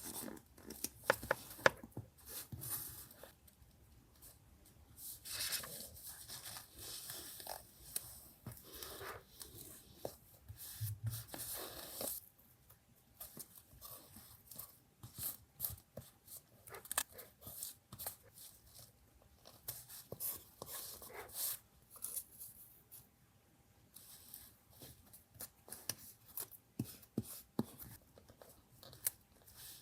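Paper being handled and torn for a collage journal, in short irregular bursts with small sharp clicks and taps between them.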